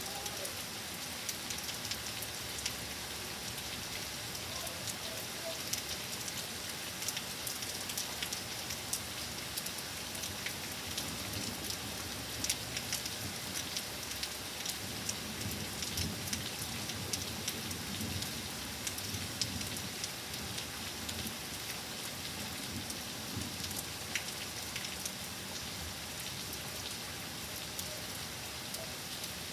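Steady rain falling, with many sharp separate drop hits through it.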